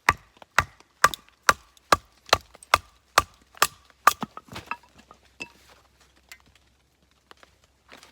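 Rhythmic chopping knocks on wood, about two a second, each with a short ringing tone; ten strong strokes, then a few lighter, uneven ones that stop about halfway through.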